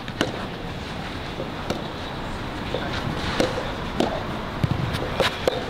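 Tennis balls struck by rackets during a rally: sharp single pops at irregular intervals, a second or so apart, two in quick succession near the end, over steady outdoor background noise.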